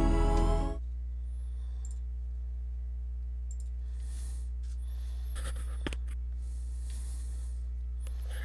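Intro music cutting off under a second in, leaving a steady low hum with a few faint rustles and a single click near the middle.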